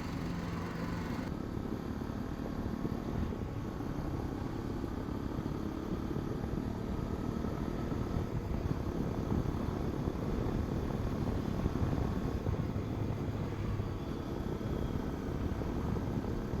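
Hero Xpulse 210's single-cylinder engine running as the motorcycle rides along, under a steady low rush of wind on the microphone.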